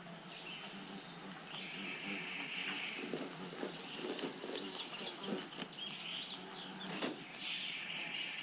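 Outdoor ambience with high bird chirps and a long, high buzzy trill lasting about four seconds, over a low steady hum.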